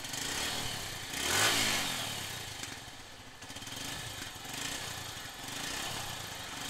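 TVS Star City Plus 110 cc single-cylinder four-stroke engine running at idle, revved up once about a second and a half in and dropping back, with smaller swells later. With its new timing chain fitted it sounds very good.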